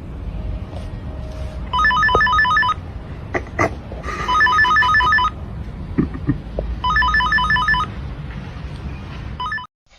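Electronic telephone ringer trilling in three bursts of about a second each with pauses between them, and a brief fourth burst near the end, over a steady low rumble.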